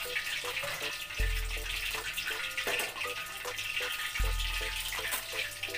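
Pot of chicken soto broth boiling on a gas stove, a steady bubbling hiss. A low hum swells about every three seconds, and short tones repeat faintly throughout.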